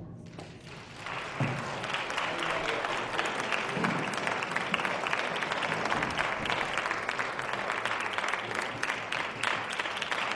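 Audience applause, starting about a second in as the band's final chord dies away and going on steadily.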